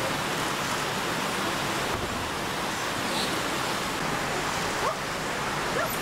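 A steady rushing hiss, like running water or rain, with a few faint short rising calls near the end.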